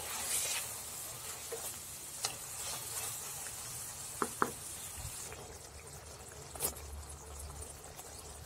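Chicken masala gravy sizzling and bubbling in a kadai while a wooden spatula stirs it, with a few sharp clicks of the spatula against the pan, the loudest a quick pair about four seconds in.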